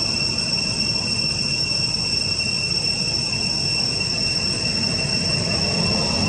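Cicadas droning in a steady, unbroken high-pitched whine over a constant low rumble.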